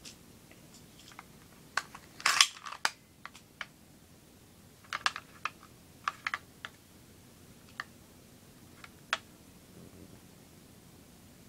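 Spring-powered airsoft Sig Sauer P226 pistol being handled and its slide worked: a scatter of sharp clicks and clacks, the loudest cluster about two seconds in, then smaller groups of clicks spread through the rest.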